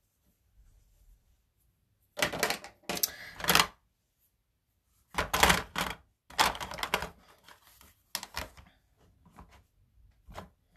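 Someone rummaging through makeup products: small items clatter and rustle in several short bunches of clicks and knocks.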